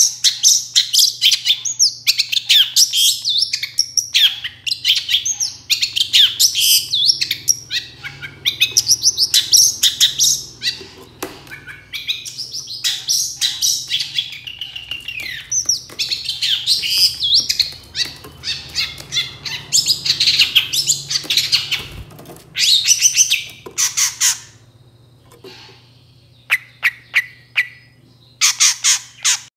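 Long-tailed shrike (cendet) singing a fast, varied stream of chattering high notes with short breaks. Near the end it pauses, gives a few sharp single notes, then one last quick burst.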